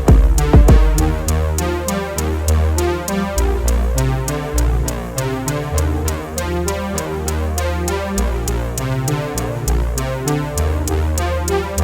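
Electronic background music: a synthesizer over a drum-machine beat, with a steady tick about four times a second and a shifting bass line.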